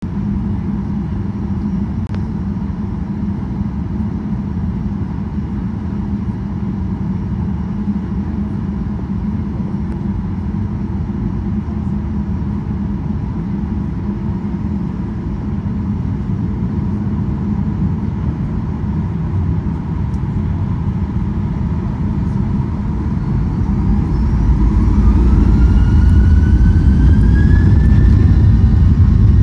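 Boeing 737-800's CFM56 jet engines heard from inside the cabin: a steady low hum and rumble, then after about twenty seconds a rising whine as the engines spool up toward takeoff thrust, with the rumble growing louder.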